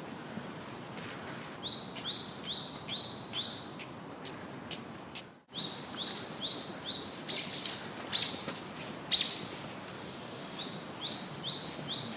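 A bird chirping in quick runs of short, falling chirps, about four a second, with a few louder single chirps between the runs, over a steady background hiss. The sound cuts out for a moment about five seconds in.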